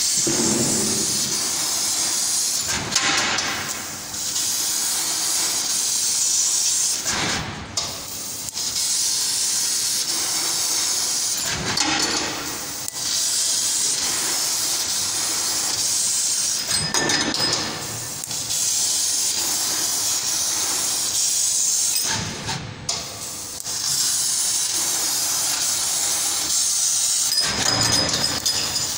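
CNC metal laser cutter cutting stainless steel sheet: a loud, steady hiss of the assist gas jet at the cutting head. It dips briefly about every four to five seconds.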